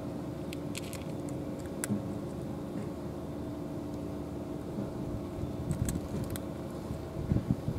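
A motor hums steadily in the background, while a cat eating wet food from a plastic tray makes a few small sharp clicks with its chewing and licking.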